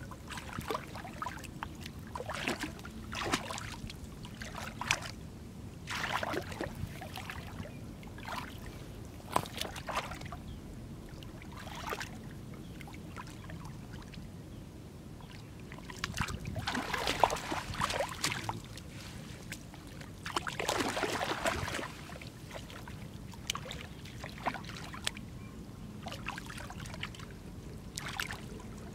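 Shallow muddy water splashing and sloshing as hands and a cast net are worked through it, in short separate splashes with two longer spells of splashing a little past the middle.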